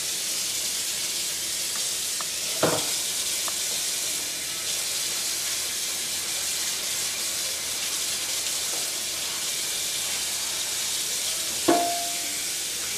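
Kitchen tap running steadily into a stainless steel sink while a knife and cutting board are washed with soap. A utensil clunks against the sink about two and a half seconds in, and again near the end.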